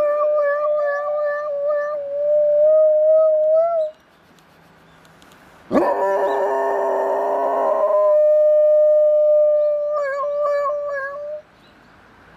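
Golden retriever howling in long, steady, slightly wavering notes, breaking off for a couple of seconds and then howling again. In the gap, a louder sound with several pitches at once starts suddenly and lasts about two seconds.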